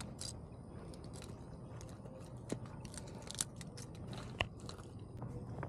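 Crunchy, irregular footsteps on grass and pebbles, with clothing brushing close to the mic, over a low steady background rumble.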